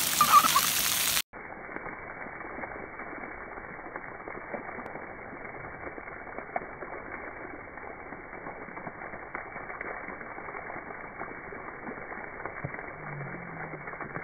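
Splash pad ground-jet fountain spurting water, the spray splattering on wet concrete: a steady, dull hiss flecked with small ticks of falling drops. About a second in, a louder, fuller noise cuts off suddenly.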